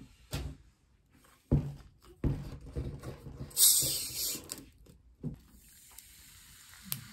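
Handling knocks on a table, then a plastic Coca-Cola bottle opened with a short, loud hiss of escaping gas about three and a half seconds in. Cola is then poured over ice cubes, fizzing steadily, with a few sharp ice clicks.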